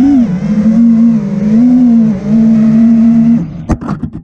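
Brushless motors and propellers of an FPV quadcopter (Brother Hobby Returner R6 2306 2450kv motors) whining, the pitch rising and falling with the throttle. About three and a half seconds in the whine cuts out and a quick run of knocks and clatter follows as the quad crashes and tumbles.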